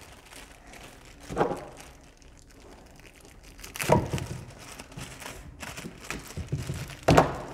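Handling noise as a plastic-and-cable speaker set is moved about on a table: a faint crinkle of plastic wrapping and three short knocks, about a second and a half, four and seven seconds in, the last two the loudest.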